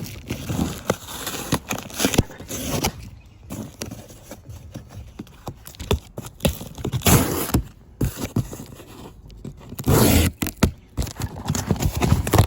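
A cardboard shipping box being opened and its packaging handled: irregular scraping, rustling and knocks, with the loudest scrapes about seven and ten seconds in.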